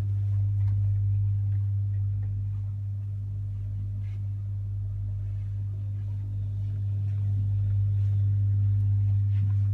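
Steady low machinery hum aboard a motor yacht, holding one deep pitch with fainter overtones, and a few faint clicks and knocks.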